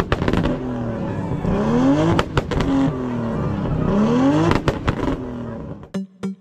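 Performance car engine revved hard several times, each rev a rising sweep in pitch, with a few sharp cracks between the revs.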